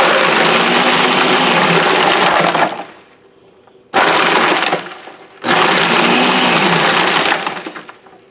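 Countertop blender crushing ice for a Kool-Aid frozen drink on its frozen-drink program, running in pulses. It runs about two and a half seconds, pauses, gives a short burst of about a second, then runs about two seconds more and trails off near the end.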